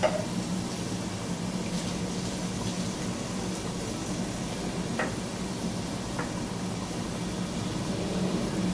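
Chicken korma of tomato and yogurt cooking in a pot on the stove, bubbling steadily with a couple of faint pops, over a steady low hum.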